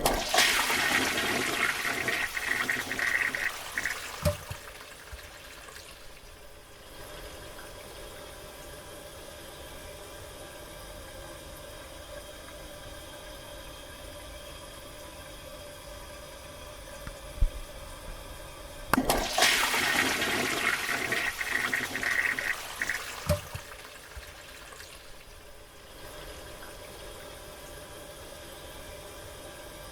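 A toilet flushed twice, about 19 seconds apart. Each flush is a loud rush of water lasting about four seconds and ends with a knock. After each one comes a quieter, steady hiss of water as the cistern refills.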